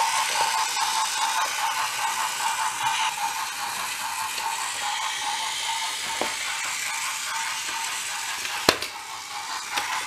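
Battery-powered toy locomotive's small electric motor and gears whirring steadily as it runs along wooden track, with a single sharp click near the end.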